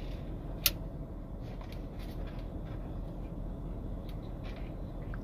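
Steady low rumble inside a parked car, with one sharp click about two-thirds of a second in and faint soft chewing sounds.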